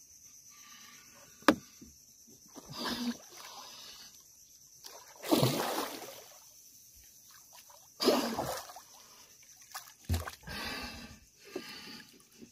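Water splashing and sloshing as a diver moves in the water against a small boat's hull, in several separate bursts, the biggest about five seconds in. A sharp knock about one and a half seconds in.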